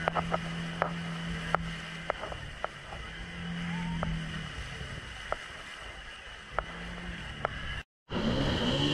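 Jet ski engine idling with a low hum that fades in and out, punctuated by sharp knocks against the hull. Near the end, after a sudden break, the engine runs at high revs, its pitch rising and falling repeatedly as the craft speeds over the water.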